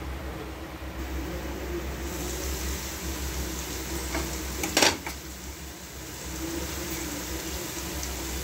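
Steady low hum with a faint hiss, and a single sharp clink about five seconds in.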